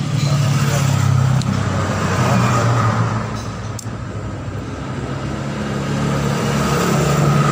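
A vehicle engine running steadily nearby, a low hum that eases off somewhat in the middle and builds again near the end; a single faint click about four seconds in.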